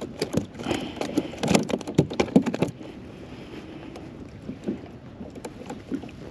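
A freshly landed fluke (summer flounder) flapping against the plastic hull of a kayak's footwell: a quick run of knocks and slaps for the first two to three seconds, then only scattered light taps as it is held down and unhooked.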